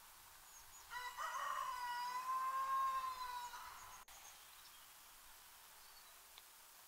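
A rooster crowing once, about a second in: one long call that rises and then holds steady for about two and a half seconds.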